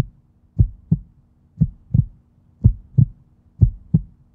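Heartbeat sound effect: low double thumps in a lub-dub rhythm, about one beat a second, four full beats, over a faint steady low hum.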